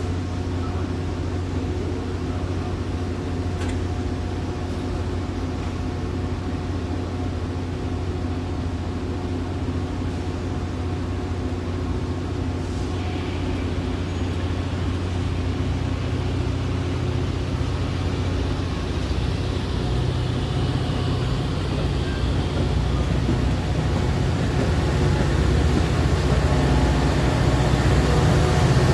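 Steady low mechanical hum of a Metra Budd gallery coach, with constant droning tones, growing gradually louder in the last several seconds.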